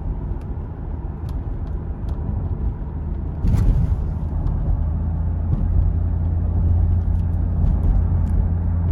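The 2004 Ford F-150 SVT Lightning's supercharged 5.4-litre V8 running with a steady low rumble. A brief hiss comes about three and a half seconds in, after which it runs louder.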